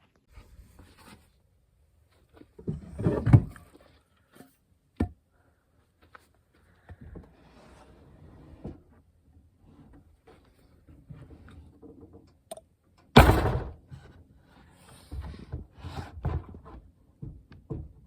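Objects being handled and set down: irregular knocks, thumps and rustling, with two louder thumps about three seconds in and about thirteen seconds in.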